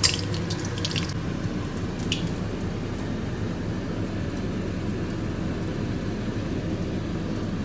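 Eggs frying in oil in a pan, a steady bubbling frying noise, with a few sharp clicks of a utensil against the pan in the first second and one more about two seconds in.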